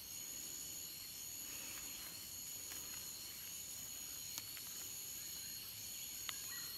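Steady, high-pitched insect chorus: several thin, unbroken tones over a faint hiss, with a soft tick or two in the second half.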